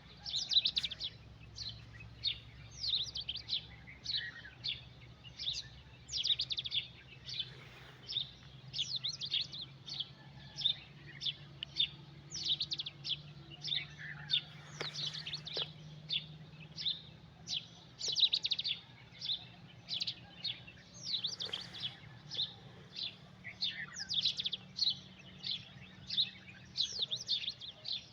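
Birds chirping at dawn: many short, quick chirps overlapping without a break, with a faint steady low hum underneath.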